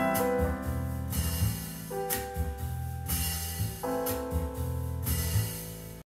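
Instrumental close of a slow pop song played through Yamaha NS-1000 loudspeakers: held keyboard chords that change about every two seconds over bass and drums, with cymbal strokes every second or two.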